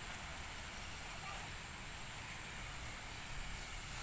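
Quiet open-air background: a steady low rumble and faint hiss, with no distinct event.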